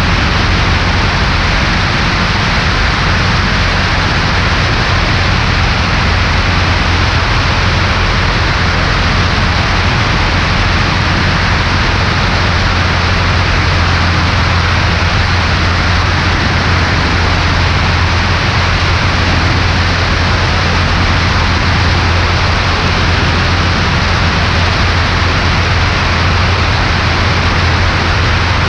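Cessna 140A's single piston engine and propeller running steadily, with loud rushing wind over a microphone on the left wing. The engine drone stays level throughout, with no change in power.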